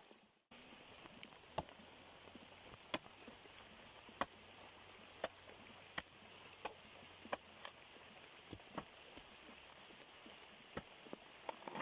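Knife cutting into a fresh banana stem: faint, sharp cuts about once a second, irregularly spaced, over a steady low hiss.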